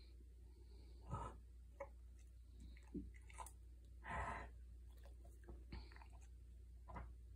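A dog's short, wet snuffling and snorting breaths, a handful of separate bursts with the longest about four seconds in: congested breathing from mucus in her nose and throat.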